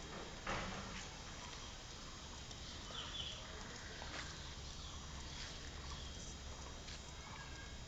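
Quiet outdoor ambience with a few short bird calls, one about three seconds in, and a single sharp knock about half a second in.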